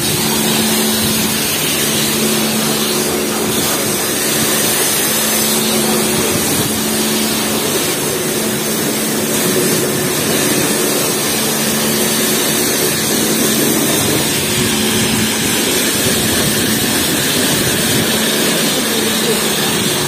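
Self-service car wash high-pressure wand spraying a car's body, a loud, steady hiss of spray with a steady low hum beneath it.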